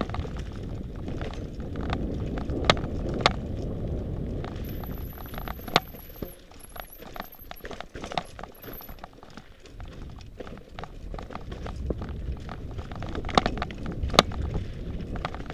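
Mountain bike riding down a rocky dirt trail: a steady low rumble from the tyres rolling over dirt and stones, with sharp clacks and rattles as the bike hits rocks. A few loud knocks come near the start and near the end.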